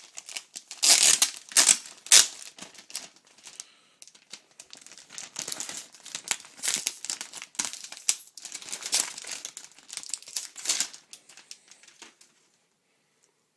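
Plastic wrapping being peeled off and crinkled by hand, in bursts of crackling and rustling that stop about twelve seconds in.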